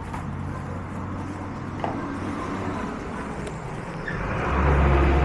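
Scissors snipping and bubble wrap rustling as a wrapped parcel is cut and lifted, over the low hum of a motor vehicle's engine that grows much louder about four seconds in.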